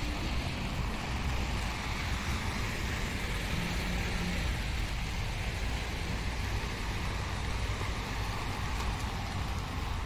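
Steady rain falling, an even hiss with a low rumble underneath.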